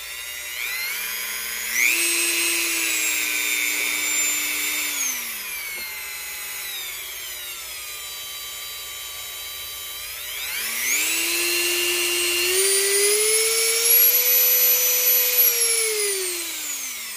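Dremel 4000 rotary tool running with no load, its motor whine climbing as the variable speed dial is turned up, holding, then falling back to low speed. It happens twice, the second climb starting about ten seconds in and reaching a higher speed before winding down near the end.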